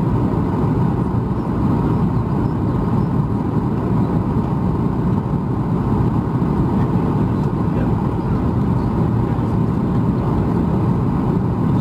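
Steady drone of a Boeing 737 MAX 8 heard from inside the passenger cabin: engine and airflow noise, even and unbroken.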